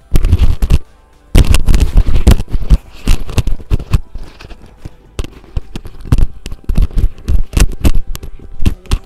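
Close handling noise: loud, irregular crackles and knocks as small makeup items are picked up and opened right by the microphone. It starts sharply at the outset, pauses briefly about a second in, then carries on in clusters.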